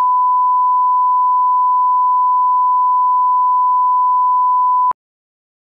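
Steady 1 kHz line-up tone, the reference tone that runs with colour bars at the head of a videotape for setting audio levels. One unbroken pure tone that cuts off suddenly about five seconds in.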